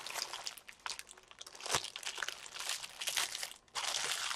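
Clear plastic packet of diamond-painting drill bags crinkling and rustling as it is handled and laid flat, with one sharper tick a little under two seconds in.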